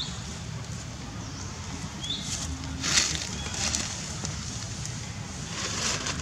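Outdoor ambience among macaques sitting on dry leaves: a steady low rumble, two short high chirps, and brief rustling bursts, the loudest about three seconds in and another near the end.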